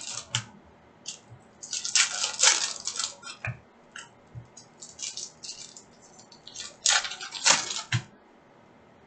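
Foil trading-card pack crinkling and a stack of glossy cards being shuffled and slid against each other, in two louder bursts about two seconds and seven seconds in. A couple of light taps land on the table between them.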